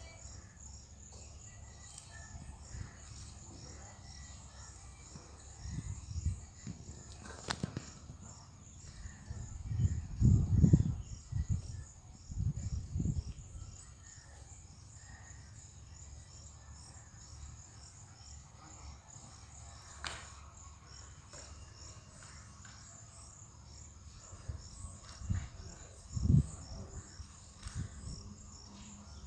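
Insects chirping steadily in a fast, even pulsing rhythm, with several low rumbles breaking in, the loudest about ten seconds in and another near the end, and a couple of sharp clicks.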